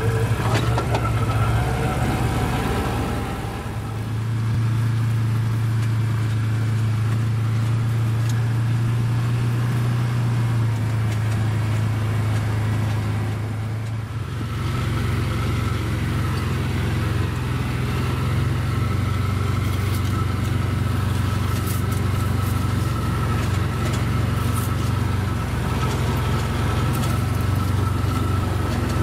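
ATV engine running steadily as the machine drives along a dirt trail, easing off briefly twice, about three and fourteen seconds in.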